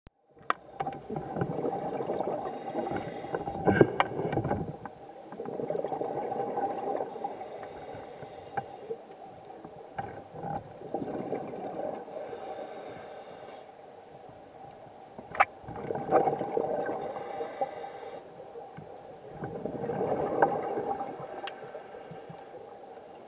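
A scuba diver breathing through a regulator underwater: hissing inhalations alternate with gurgling bursts of exhaled bubbles, one breath every few seconds. A couple of sharp knocks come about four seconds in and again past halfway.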